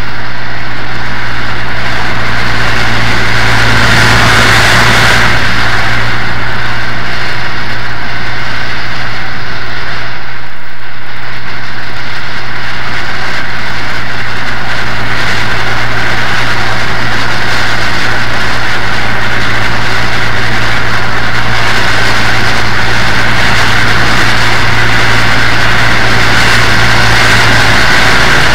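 Southern Pacific AC-11 cab-forward articulated steam locomotive working hard upgrade, its exhaust beats merging into a loud, steady sound with a deep low hum underneath, briefly dipping about ten seconds in.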